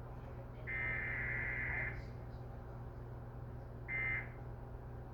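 Emergency Alert System digital header tones: a harsh, buzzy two-tone data burst lasting about a second, then after a pause two short bursts of the same warble about a second apart, over a low steady hum. These bursts carry the coded alert message that triggers receivers.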